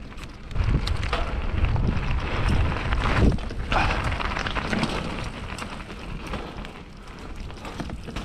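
Intense Tracer mountain bike riding over a rough, rooty trail: tyre noise and rattling knocks from the bike, with wind rumbling on the camera microphone. Louder for the first few seconds, then easing off.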